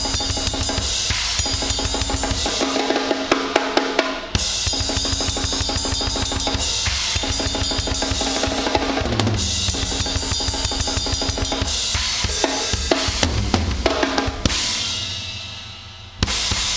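A drum kit played fast in a punk and grindcore style: rapid bass drum, snare and cymbal strokes. Near the end the playing stops and a cymbal rings out and fades, then one last hit lands just before the end.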